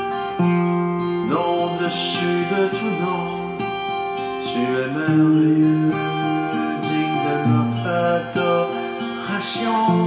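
Acoustic guitar with a capo, played in sustained chords that change every second or two, with a man's voice singing a slow worship song over it.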